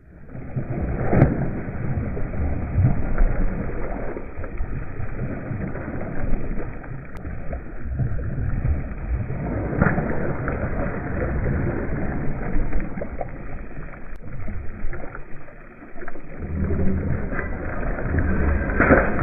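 A hooked wallago catfish thrashing and splashing at the water's surface as it is played on a rod and dragged ashore. Louder splashes come about a second in, around ten seconds in and near the end, over a steady low rumble.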